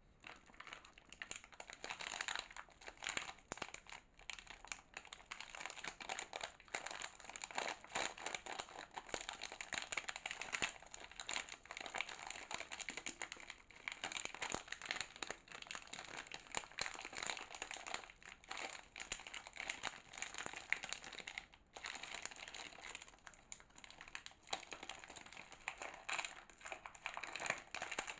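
Soap packaging crinkling and rustling as soap is unwrapped by hand, a dense run of crackles with a short pause about three-quarters of the way through.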